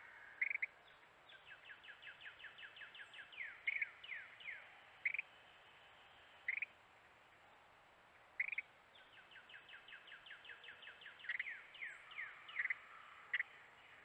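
Carolina wren calling: two runs of quick, evenly repeated down-slurred notes, about six a second, with loud single sharp chips spaced a second or more apart between and around them.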